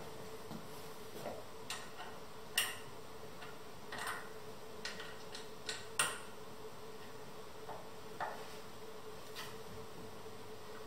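Irregular small clicks and taps as hands fit bolts and hardware into a bentwood rocking-chair frame, the sharpest about two and a half and six seconds in, over a faint steady hum.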